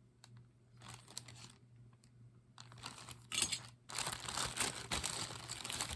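Plastic jewelry bags crinkling and rustling as brooches are handled, in irregular bursts, busiest and loudest in the second half.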